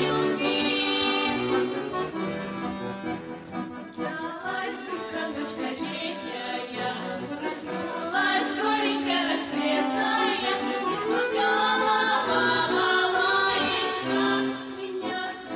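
Folk song: a vocal ensemble singing together over accordion accompaniment.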